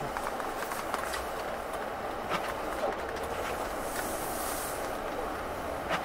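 Mercury Grand Marquis in motion on a snow-covered road, heard from inside the cabin: a steady rumble of tyres on packed snow with a few scattered knocks and clicks, and a brief hiss about four seconds in.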